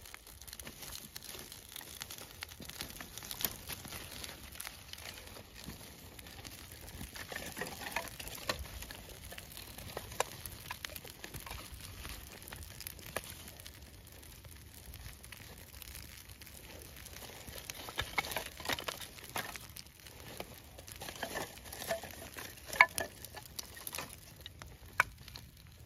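Small birch-bark and twig fire crackling as it catches, with the rustle and clack of dry kindling sticks being laid onto it. Scattered clicks and snaps, thicker in spells, with the sharpest snap near the end.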